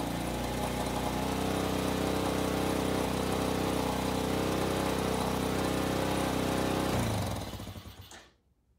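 A 110cc Chinese ATV's single-cylinder four-stroke engine idling steadily at a high idle that the idle screw would not bring down, which the owner suspects is a throttle stuck open or a carburettor slide not fully set. About seven seconds in it is shut off and runs down to a stop within a second.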